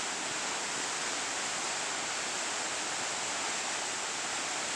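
Steady rush of water, an even noise with no breaks or separate impacts.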